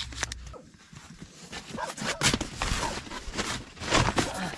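Rustling and scraping of camping gear being handled and a foam sleeping mat being unrolled on a tent floor, with irregular knocks and clicks that grow busier and louder from about two seconds in.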